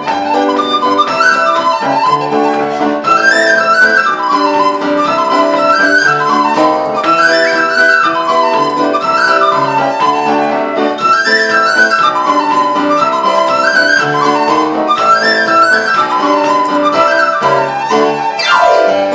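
Tin whistles played in unison, a lively tune in quick runs of notes that rise and fall in repeated phrases, over a lower accompaniment.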